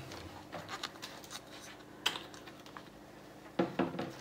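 Light handling sounds: scattered soft taps, clicks and rubbing as hands grip and shift a funnel about, with a short cluster of knocks near the end.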